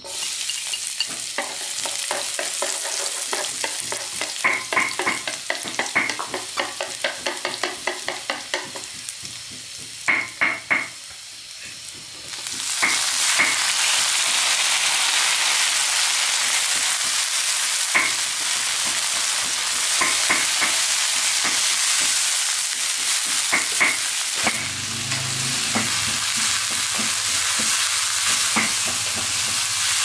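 Food frying in a pan or wok: quick clicks and scrapes of a cooking utensil at first, then a loud, steady sizzle that starts about twelve seconds in as food meets hot oil and keeps going.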